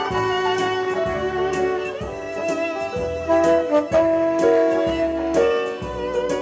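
Live band instrumental passage: a violin and a saxophone playing the melody over keyboard backing with a steady beat.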